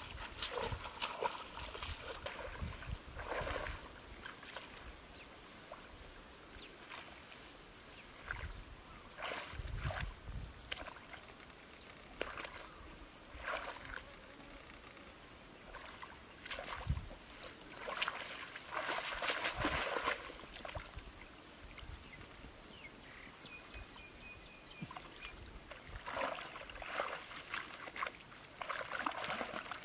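Muddy shallow water splashing and sloshing in irregular bursts as a person wades and works through it with their hands.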